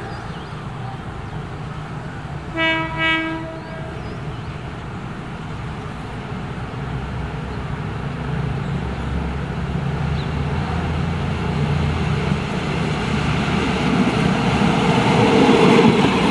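Diesel train's horn giving two short blasts about three seconds in, then the train's engine and wheels rumbling steadily louder as it approaches and passes close by near the end.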